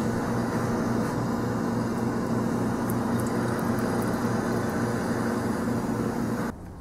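A steady low hum with a few fixed tones and a haze of noise, cut off abruptly near the end.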